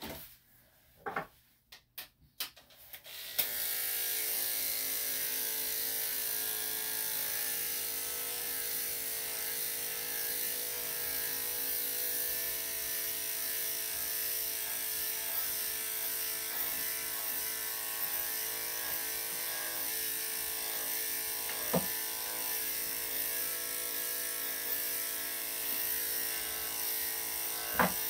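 Electric dog-grooming clipper switching on about three seconds in and running steadily as it clips a dog's coat. There are a few short clicks before it starts and two sharp clicks near the end.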